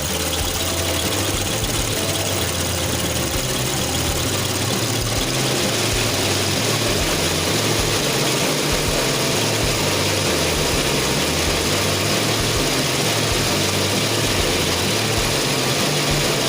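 A loud, steady machine noise, like an electric motor running under load, with a stepped bass line of background music beneath it.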